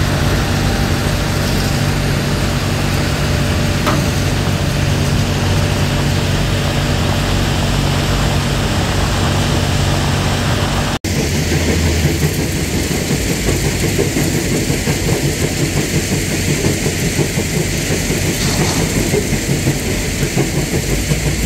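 Diesel engine of an Iveco S-Way tractor unit running under load as the truck moves on gravel with its hydraulic front-wheel drive assist engaged. Heavy wind noise rumbles on the microphone throughout and grows stronger after a cut about eleven seconds in.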